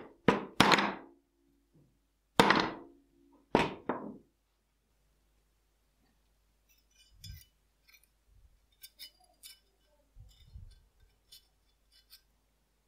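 Four sharp hammer blows on a steel tool held against a steel revolver frame, each with a short metallic ring, the last two about a second apart. From about six seconds in, faint small metal clicks and scrapes as a pointed tool works inside the revolver's action.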